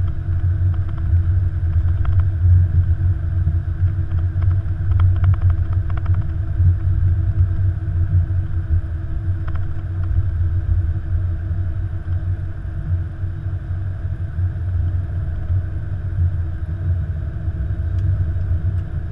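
Flight-deck noise of an Airbus A330-200 rolling out on the runway after landing and turning off toward the taxiway: a steady low rumble with a constant hum on top and a few faint clicks about five seconds in.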